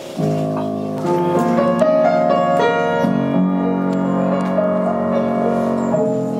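Piano playing a song's introduction unaccompanied: held chords and melody notes moving to new notes every second or so.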